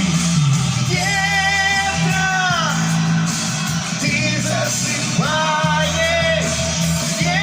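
Song music playing: a backing track with a steady low accompaniment, and a lead melody of long notes that bend in pitch over it.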